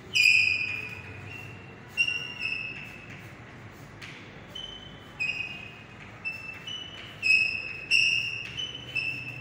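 Chalk squeaking on a blackboard while writing: a string of about a dozen short, high-pitched squeals, each held at one pitch. The loudest come right at the start and again around seven to eight seconds in.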